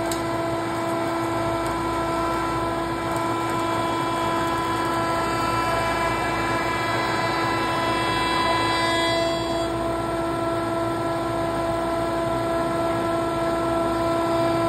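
Rockwell pin router running at speed, its motor and spindle giving a steady whine of several tones, while the bit cuts a plow groove into a wooden handrail easement. A few of the higher overtones fade out about nine to ten seconds in.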